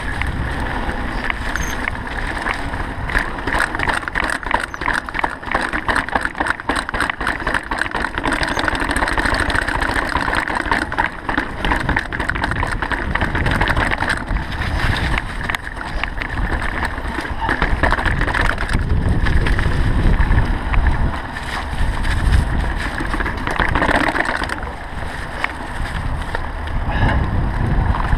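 Mountain bike descending a rough dirt singletrack: continuous wind rush on the microphone with tyres rumbling over the ground and the bike rattling and clattering over bumps.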